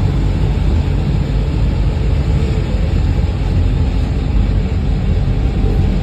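Electric rack-railway train running, a steady low rumble heard from inside the carriage.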